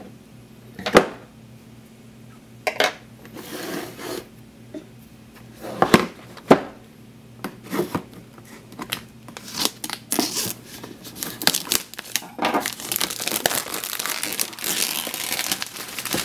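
Objects handled on a wooden desk: a few sharp knocks in the first seven seconds, then from about ten seconds in continuous crinkling and rustling of a clear plastic packaging bag being handled beside a cardboard box.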